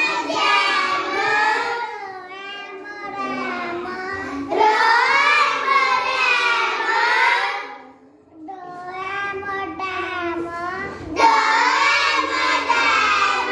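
A young girl's voice reading phonics words aloud in long, drawn-out phrases, with a short pause about eight seconds in.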